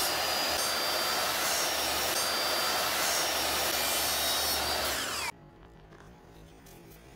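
Power tool running steadily as it cuts the excess edges off a cured fiberglass laminate sheet, with a harsh hiss of the cut. It stops abruptly about five seconds in.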